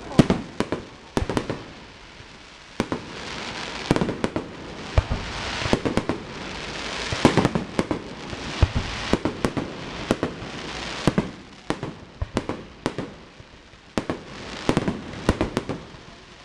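Aerial fireworks bursting in a fast, irregular string of sharp bangs, with a steady hiss between them and a short lull before a last cluster of bangs.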